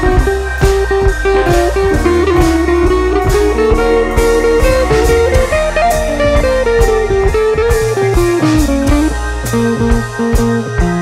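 Background music: a bluesy electric-guitar track with a steady drum beat.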